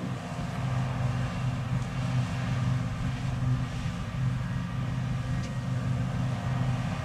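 Fendt 6275 L combine harvester running at steady working speed, its engine giving an even low drone with no change in pitch.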